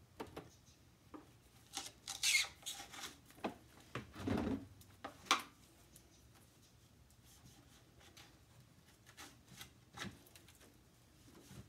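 A screwdriver scraping and a rag rubbing inside the pivot-bar slot of a window sash, clearing out rust debris. The scrapes and taps come irregularly and are busiest in the first half, with sparser small clicks after that.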